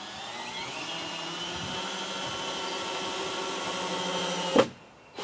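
Cordless drill driving a screw into a wooden rafter: the motor winds up, runs steadily for about four and a half seconds, then stops with a sharp click near the end.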